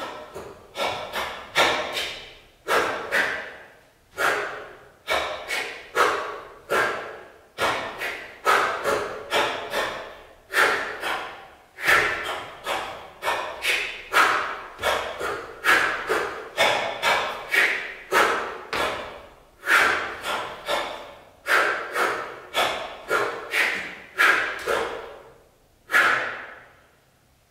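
Hands slapping the body in a fast, irregular series of sharp smacks, each ringing out in a reverberant hall.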